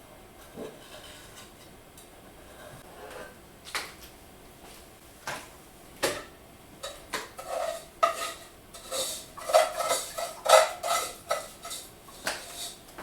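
Muffin pan and utensil knocking and scraping as baked muffins are pried out onto a plate: a few separate knocks at first, then a busy run of clinks and scrapes in the second half.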